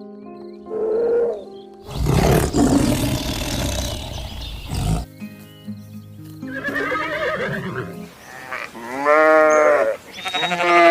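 Background music with a run of different animal calls laid over it: a loud, harsh call lasting about three seconds starting about two seconds in, then shorter calls of quickly repeated notes near the end.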